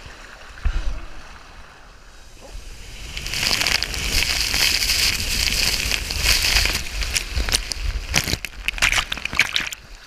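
Water and air rushing past a GoPro as a rider drops down a near-vertical free-fall water body slide: a brief thump just before a second in, then a loud steady rush building from about three seconds in, breaking into choppy splashing near the end as the rider ploughs through the water run-out.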